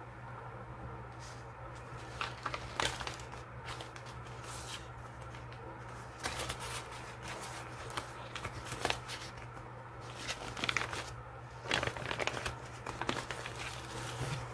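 Paper rustling and crinkling in several short bursts as a crinkled kraft-paper pouch is opened and the paper sheets inside it are handled, over a steady low hum.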